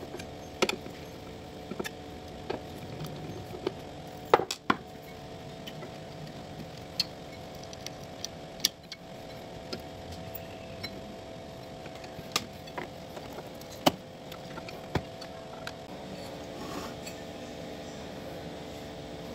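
Irregular small clicks, taps and clinks of a screwdriver and metal parts as the power output transistor board of an electrosurgical unit is unscrewed and taken out, the loudest a pair of knocks a little over four seconds in. A steady low hum runs underneath.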